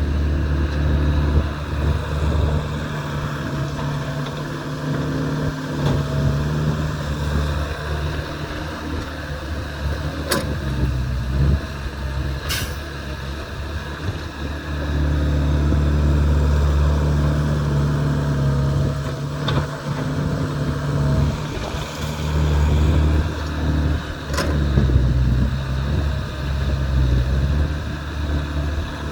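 Excavator's diesel engine running under load, swelling louder and easing off as it works, with a few sharp knocks.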